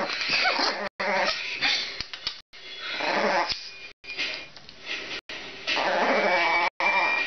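Small white Chihuahua growling and grumbling on and off while being held and kissed, louder near the end.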